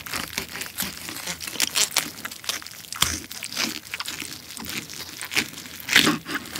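A knife sawing through the crisp roasted skin of a German pork hock (Schweinshaxe): a dense run of crackling crunches, with a louder crunch near the end.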